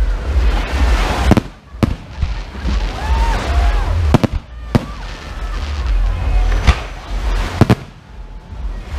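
Aerial firework shells bursting in a fireworks display: about half a dozen sharp bangs, one every second or two, with a continuous rushing noise between them.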